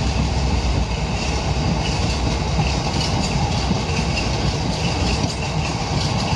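Open box wagons of a freight train rolling past at speed: a steady rumble of steel wheels on the rails, with a faint high squeal coming and going.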